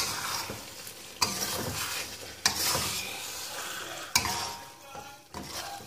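Metal spatula stirring chicken in thick red chili gravy in a wok, sizzling, with a sharp clack against the pan about every second.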